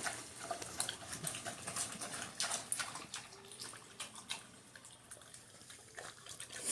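A pig eating a lettuce-and-tomato salad from a bowl with water in it: irregular wet chewing and slurping clicks.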